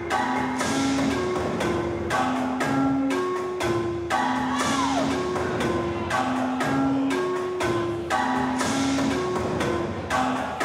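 Music with a steady beat and a short pitched figure that repeats about every second and a half.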